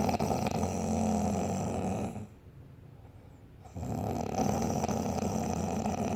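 Snoring in sleep: one long, rough snore that ends about two seconds in, then a quiet pause, then a second long snore that starts a little before four seconds.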